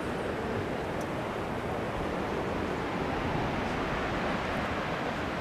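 Steady wind rushing over the camera microphone, buffeting with a rough low flutter.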